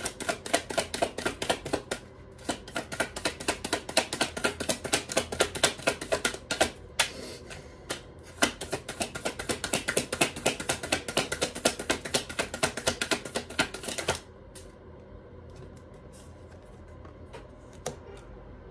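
A deck of tarot cards being shuffled overhand: a fast, dense run of light card clicks that stops about fourteen seconds in. A few soft taps follow near the end as cards are laid on the table.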